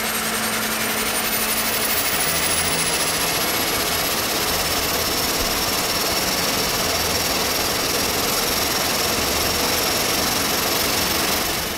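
Cessna Caravan 208B's Pratt & Whitney PT6A turboprop spooling up just after light-off during start, its gas generator turned by an AMETEK 325-amp starter generator, as it accelerates toward idle. A loud, steady turbine rush with high whines that rise in pitch over the first few seconds and then hold steady.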